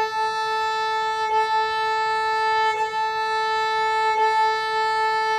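Fiddle sounding one steady note in even down-and-up bow strokes, the bow changing direction about every second and a half without stopping. The bow changes are unaccented and the bow is kept light.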